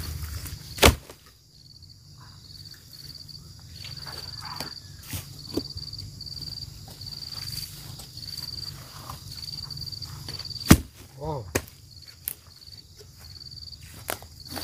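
Insects chirping in an even, repeating high trill, with two sharp knocks, about a second in and again about eleven seconds in, as a wooden log is carried and dragged.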